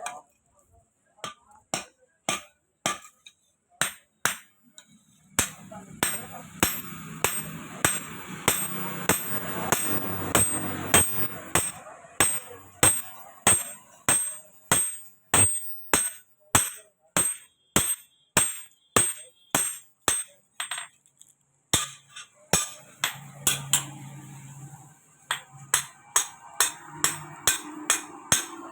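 Blacksmith's hand hammer striking metal on an anvil in a steady rhythm, about two ringing blows a second, with a short break about three quarters of the way through.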